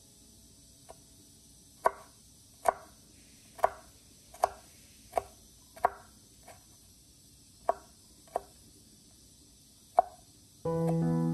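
Kitchen knife chopping a red bell pepper on a wooden cutting board: about a dozen separate knocks of the blade on the board, unevenly spaced and roughly one a second. Piano music starts near the end.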